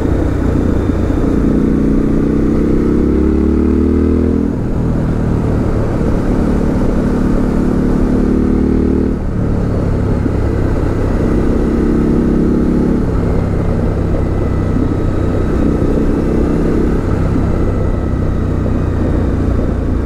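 Suzuki V-Strom 1050XT's V-twin engine on the road, its pitch climbing under throttle several times. It drops sharply about four and nine seconds in as it shifts up.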